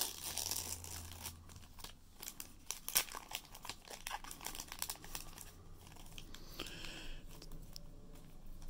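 Foil wrapper of a Magic: The Gathering box-topper pack being torn open and crinkled by hand: a run of irregular sharp crackles and rips, busiest in the first few seconds.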